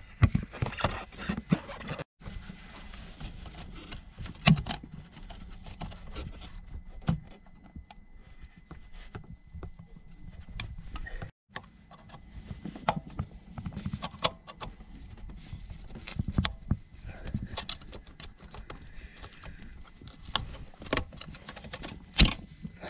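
Irregular clicks, scrapes and light knocks of a screwdriver and fingers working at the plastic electrical connector on a diesel's high-pressure fuel pump flow regulator.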